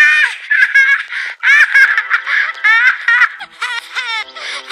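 Pepee cartoon character's high-pitched child voice in a rapid run of short, sharply inflected vocal outbursts, about three to four a second, which sound like a giggling or sobbing fit.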